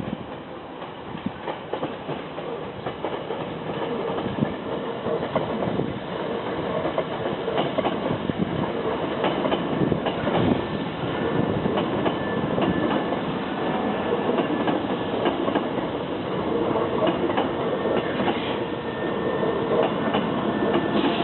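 Hankyu 3300-series electric train pulling out and picking up speed, its resistance-controlled Toyo Denki traction motors humming under the wheels clacking over rail joints. It grows gradually louder.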